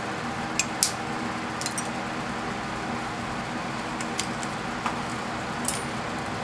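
Steady background hum, broken by a few light clicks and ticks of small metal parts being handled.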